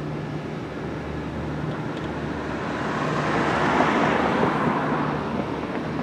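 A vehicle passing by: a noisy swell that builds to a peak about four seconds in and fades, over a steady low hum.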